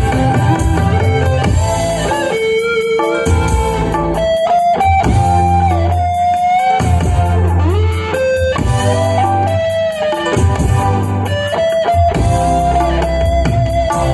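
Band music over a sound system, led by an electric guitar melody with bending notes over bass and a steady beat, picked up by a phone's built-in microphone.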